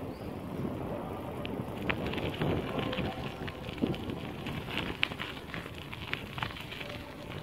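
Bicycle tyres rolling over a gravel path: a steady crackle with many small sharp ticks.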